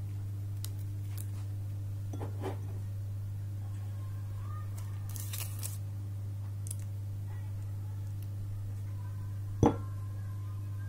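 Quiet kitchen handling over a foil-lined baking tray against a steady low hum: a few faint light taps, a short rustle about five seconds in, and one sharp knock near the end.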